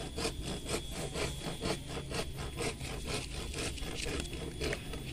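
Hand saw cutting through an avocado branch in quick, even strokes, about four a second, stopping near the end.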